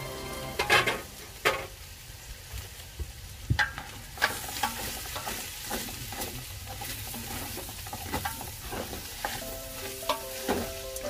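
A cooking utensil stirring sliced onions, carrots and sausage in a large aluminium pot, scraping and knocking irregularly against the metal over the steady sizzle of the vegetables frying.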